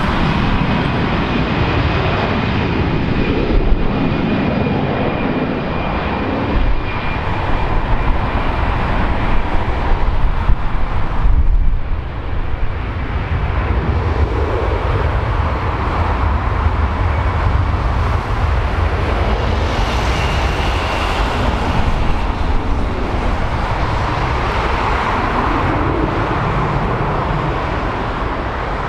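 Airbus A320's CFM56 turbofan engines running with a steady jet rumble and whine as the airliner taxis onto the runway. About two-thirds of the way through, a higher whine comes in and the sound gets brighter as the engines spool up for the takeoff roll.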